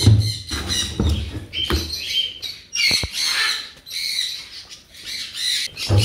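Captive parrots keep up a high-pitched chattering and screeching, with a few dull knocks in the first two seconds and a sharp click about three seconds in as the heavy wooden nest box is handled.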